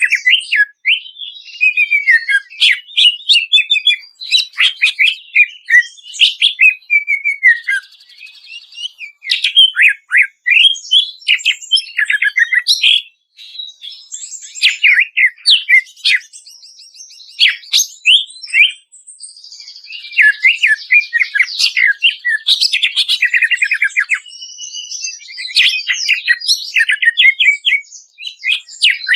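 Cucak ijo (green leafbird) singing a fast, varied song: quick runs of whistled and chattering notes, many sweeping downward, broken by a few short pauses.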